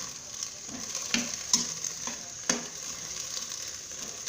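Long beans and carrots being stir-fried in a pan: a steady sizzle, with a spatula knocking and scraping against the pan about six times in the first half before the stirring eases off.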